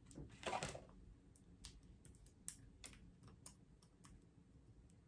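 Scattered light clicks of long acrylic fingernails on a small plastic lip-scrub jar as it is handled and worked at to open, its seal still on, with one louder soft noise about half a second in.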